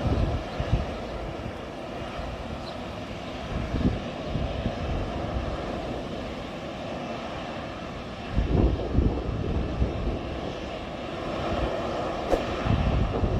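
Boeing 737-800 jet engines (CFM56-7B) running steadily as the airliner moves about the airport after landing, with several brief low rumbles.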